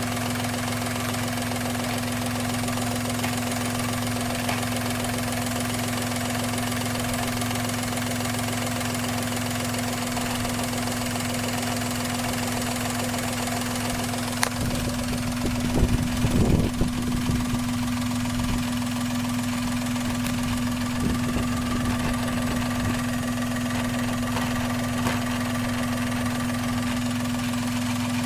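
Daihatsu Terios Kid's turbocharged three-cylinder engine idling steadily, with a faint buzzing rattle from the intercooler cover, whose retaining clips have worked loose. About halfway through comes a sharp click, then a couple of seconds of louder irregular knocks and rattles.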